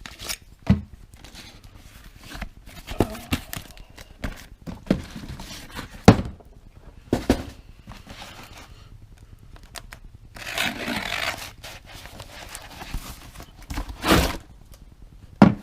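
A cardboard shipping box being opened and handled: a series of knocks and thuds, with a longer stretch of tearing and crinkling about ten seconds in.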